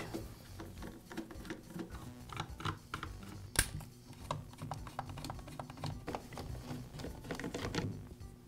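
A run of light clicks and ticks from a screwdriver turning out the screws of a Poulan P3314 chainsaw's plastic starter cover, with one sharper click about three and a half seconds in and a quick cluster of clicks near the end as the cover is handled.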